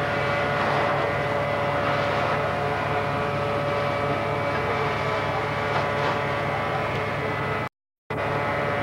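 Fire engines running steadily, a continuous engine drone with a fixed pitch. The sound cuts out briefly near the end.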